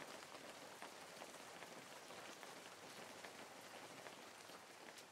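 Faint light rain pattering: a soft, even hiss with scattered light ticks, near silence.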